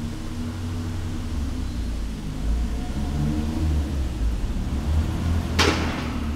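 Mastretta MXT sports car's engine running at low revs as the car drives slowly past close by, a low steady rumble that grows a little louder. A brief loud rushing burst comes near the end.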